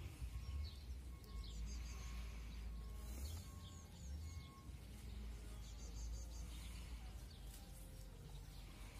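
Birds chirping and singing in short scattered calls, over a low, steady rumble of wind on the microphone.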